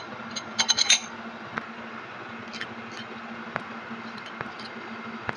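Small metal parts clicking and clinking against the steel housing of a hydraulic drive motor as they are fitted by hand: a quick cluster of clicks about a second in, then scattered single ticks. A steady low hum runs underneath.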